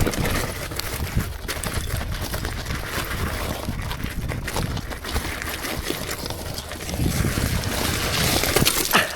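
Mountain bike ridden across a beach: a steady rough crunching of the tyres on sand and stones, with many small clicks, mixed with wind on the microphone.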